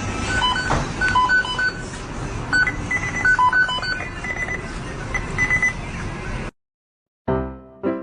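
A run of short, steady beeps at several different pitches over a noisy background. It cuts off suddenly about six and a half seconds in, and piano music begins near the end.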